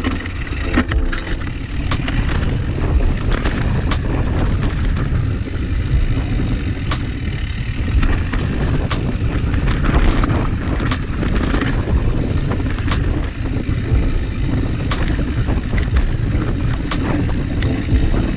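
Enduro motorcycle being ridden off-road: a steady engine rumble with frequent sharp knocks and clicks throughout.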